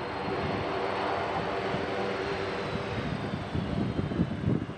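Airbus A330 twin-jet landing: steady jet-engine whine with a faint high tone slowly falling as it passes, and low rumbling gusts near the end as its main wheels touch down.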